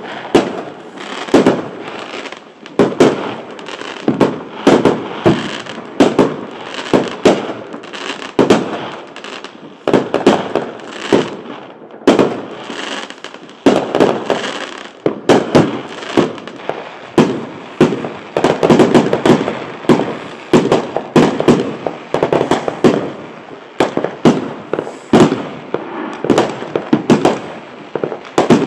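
Aerial fireworks exploding overhead in a dense, overlapping barrage of sharp bangs, several a second, with a brief lull about twelve seconds in.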